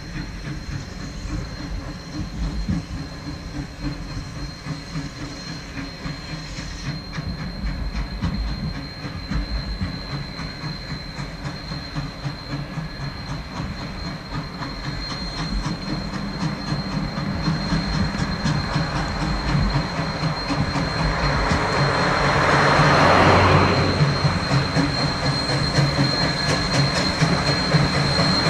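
Sierra Railway No. 3, a 4-6-0 steam locomotive, approaching with its train: a low rumble with clatter of wheels over the rails, growing louder as it nears. About three-quarters of the way in there is a louder rushing noise lasting a couple of seconds.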